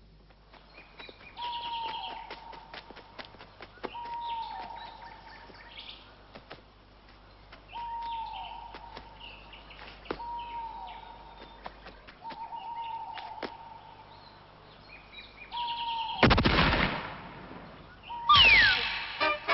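Bird calls, a short note dropping in pitch repeated every two to three seconds, with scattered clicks. Near the end come a loud noisy burst and then a whistle falling in pitch.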